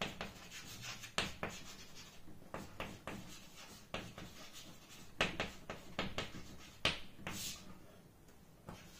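Handwriting: a run of short, irregular scratching strokes of a writing tool on a surface, with brief pauses between them, dying away near the end.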